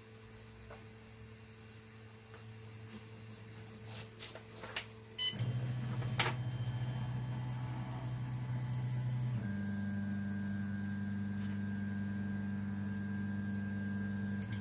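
Wanhao Duplicator i3 Plus 3D printer's stepper motors humming in steady low tones as the levelling wizard drives the print head to the next corner. A few light clicks come first; the hum starts about five seconds in and shifts to a different pitch about four seconds later.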